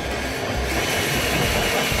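Power drill running a 6-inch hole saw, cutting a round hole through gypsum wallboard: a steady grinding run, with a higher whine coming in a little under a second in.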